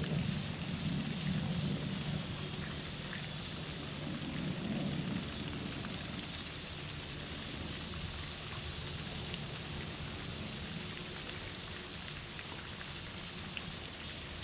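Steady high-pitched outdoor hiss, with low rumbles in the first two seconds and again about five seconds in.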